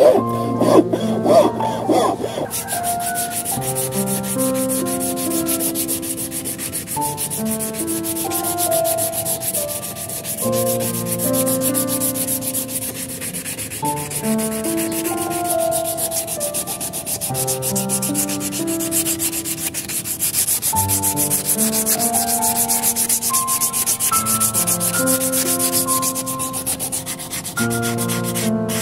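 A steel file rasping across carved wood in strokes for the first couple of seconds, then sandpaper rubbing steadily back and forth over the wooden piece, with a fine scratchy hiss. Soft background music with sustained notes plays underneath.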